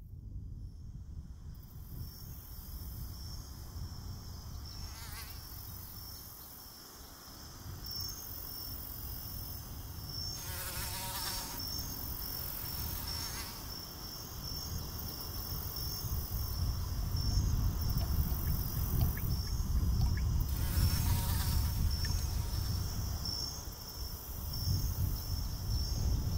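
Insects chirping in a steady, high, pulsing trill, with a few brief louder hissing swells and a low rumble that grows louder in the second half.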